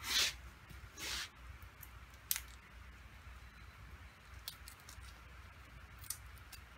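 Small handling noises as the stop switch and its wire are worked out of the handlebar end: two short scraping hisses in the first second, then a sharp click and a few faint ticks.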